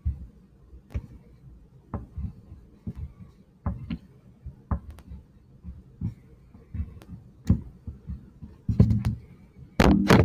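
Drawing strokes on a sheet of paper on a tabletop: irregular soft knocks and taps, about one or two a second, as zigzag lines are drawn back and forth. A louder rustle comes near the end as the hand comes off the paper.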